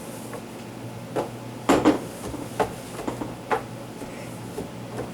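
Refrigerator door being wiped down with a wet towel: a scatter of short knocks and clunks as its plastic shelves and bins are bumped, the loudest a double knock just under two seconds in, over a steady low hum.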